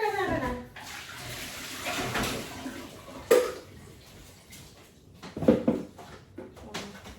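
Water running briefly, with a few sharp knocks, the loudest about three and five and a half seconds in, and a short falling tone at the very start.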